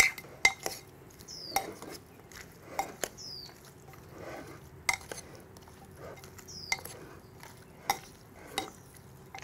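Metal spoon stirring meat chunks in a thick marinade inside an earthenware pot: irregular sharp clinks of the spoon against the clay, with wet mixing between.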